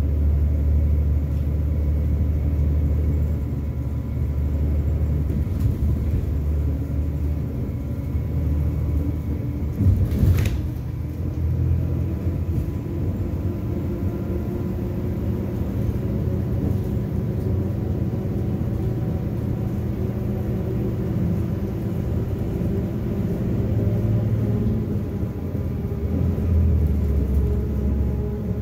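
Steady low rumble of a moving city bus, its engine and road noise heard from inside the cabin. About ten seconds in there is a single loud thump.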